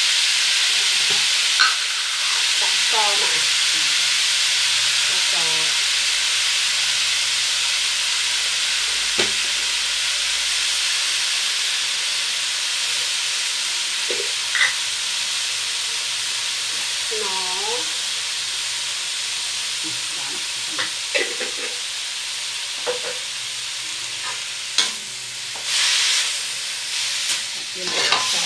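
Pork pieces sizzling steadily in a hot steel wok. Near the end a metal spatula stirs and scrapes the meat against the pan, adding sharp clinks and scrapes over the sizzle.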